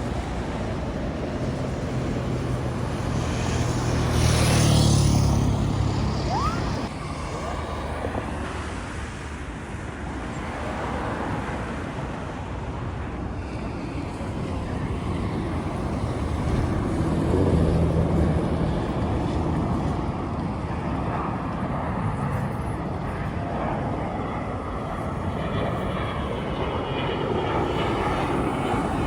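Jet airliner flying past, a steady rumble of engine and air noise that swells about five seconds in and again a little past the middle.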